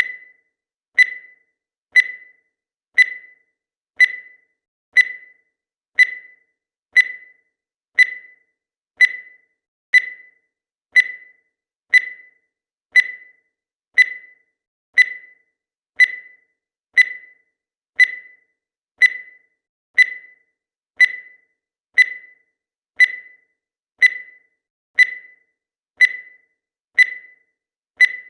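Countdown timer sound effect: a short, high electronic beep once a second, each one dying away quickly, in a steady unchanging rhythm.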